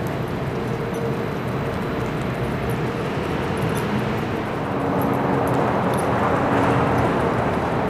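Steady downtown city noise: a constant drone with a couple of faint steady hums in it. It grows louder about five seconds in.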